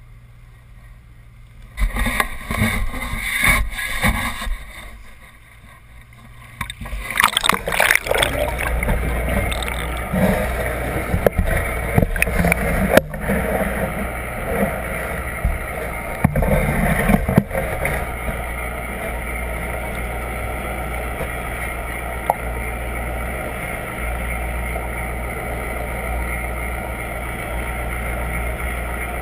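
Waterproof camera being handled and dunked into the sea: irregular bumps and splashing for a few seconds, then from about seven seconds the dull, steady low rumble of water heard from inside the submerged housing, with scattered knocks at first, settling to an even rumble for the second half.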